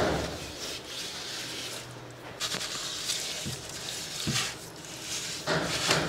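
Wet sand being scooped from a steel container and pressed by hand onto the glass floor of an aquarium tank: soft scraping and rustling, with a few light knocks.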